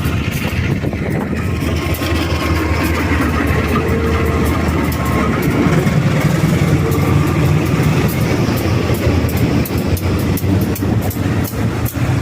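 Train running steadily, a continuous loud noise of wheels and machinery with a faint steady whine, and no horn sounding.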